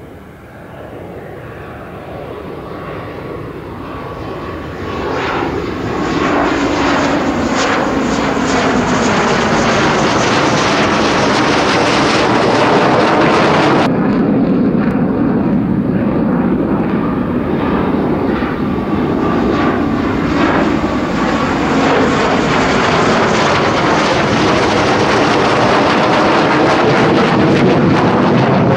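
Jet noise from an F-15J Eagle's twin F100 turbofan engines in a low display pass. It grows louder over the first several seconds and then stays loud, with a swirling, phasing sweep as the jet passes overhead. There is a sudden break in the sound about halfway through.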